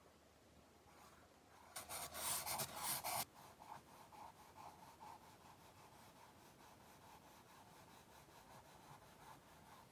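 White pencil scratching on toned drawing paper as wing feathers are sketched. A louder stretch of fast scribbled strokes comes about two seconds in and lasts a second and a half, followed by a run of lighter, short strokes.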